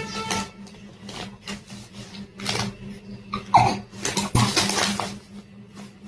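A baby hiccuping: a run of short, sudden hics about a second apart, one with a brief falling squeak about three and a half seconds in, over a low steady hum.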